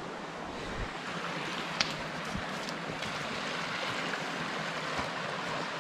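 Creek water rushing steadily, with a single sharp click a little under two seconds in.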